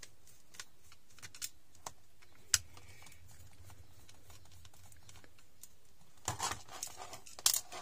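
Small clicks and ticks of a screwdriver backing screws out of a small plastic receiver case, with one sharp click about two and a half seconds in. Near the end comes a short run of plastic clicks and rattles as the case is handled.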